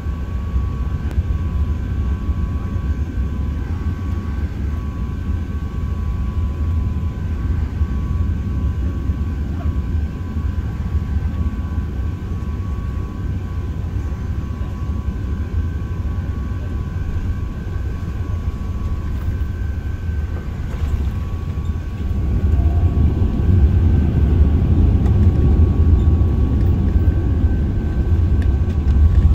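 Airbus A380 cabin noise on final approach: a steady low rumble with a faint steady whine above it. The rumble grows louder about three quarters of the way through.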